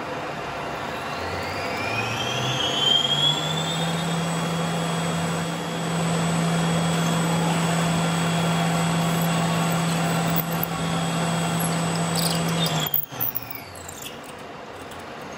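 Colchester lathe running while a twist drill in the tailstock chuck bores into a free-machining aluminium part: a steady hum with a thin whine that rises over the first few seconds and then holds. The sound cuts off abruptly about two seconds before the end.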